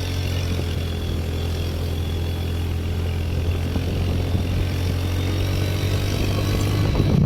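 An engine running steadily at an even speed, a constant low hum with no change in pitch.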